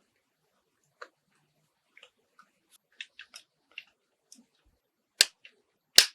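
Small clicks and taps of parts being handled on a 1:24 scale model car, with two loud, sharp snaps near the end.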